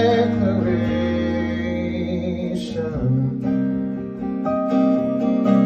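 A man singing live over his own acoustic guitar: he holds a long note on the word "declaration" over a sustained chord, then the guitar changes chord about three seconds in and keeps strumming.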